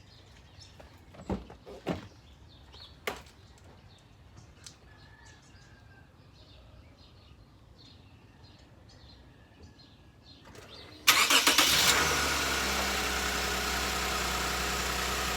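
A few short thumps, then about 11 seconds in the 2006 Lexus GS300's V6 engine cranks and starts with a loud burst, settling into a steady idle.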